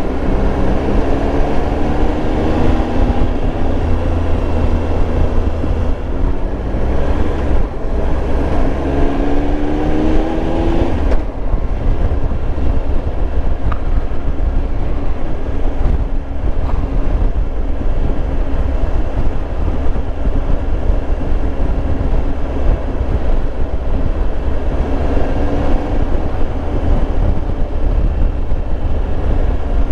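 Triumph Tiger Explorer 1200's three-cylinder engine running at road speed, heard from on board with wind rushing over the microphone. The engine note climbs as the bike accelerates, twice in the first dozen seconds, with a sudden drop about eleven seconds in, and once more near the end.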